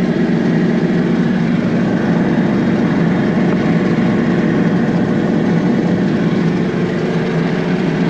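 John Deere 6620 combine running steadily, heard from inside its cab, while its unloading auger empties shelled corn into a truck.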